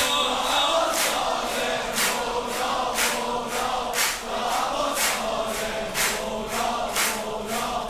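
Crowd singing a Persian devotional chant together in long held notes, over a steady beat about twice a second.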